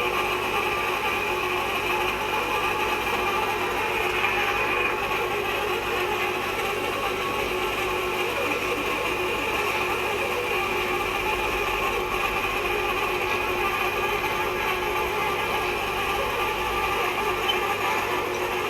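Steady mechanical running noise with a constant hum and several held tones, unchanging throughout.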